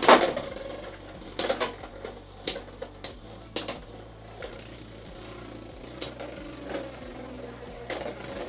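Two Beyblade X tops, Shark Edge and Night Shield, spinning in the plastic stadium with a steady whir. Sharp clacks come as they collide: the hardest right at the start, then hits at irregular intervals, about eight in all.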